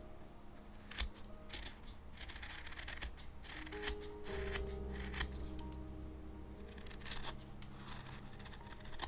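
Japanese carving knife (kogatana) paring soft paulownia wood: a run of short, irregular shaving cuts, with soft background music under them.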